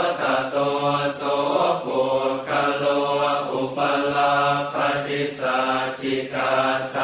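Thai Buddhist funeral chant in Pali, recited by monks: low male voices held on one nearly level pitch, syllable after syllable, with short breaks between phrases.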